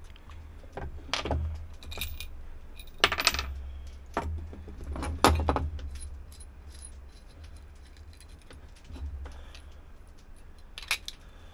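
Small metal parts and hand tools clinking and clattering on a wooden table as a windlass deck switch is taken apart: pliers, an adjustable wrench, a metal retaining ring and the switch's base plate knocking together. The loudest clatters come about 3 and 5 seconds in, with a steady low hum underneath.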